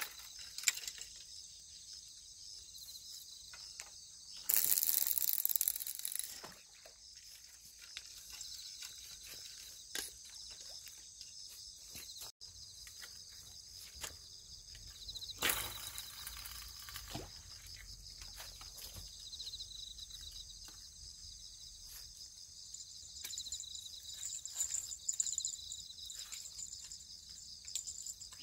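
Steady high-pitched chorus of insects trilling in the grass, pulsing in places. A loud rustling burst lasts about two seconds near five seconds in, with a few short clicks and knocks elsewhere.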